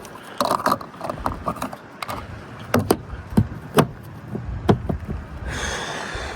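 A series of sharp clicks and knocks from handling a petrol pump nozzle and a car's fuel filler after refuelling has stopped. Near the end a steady hiss sets in.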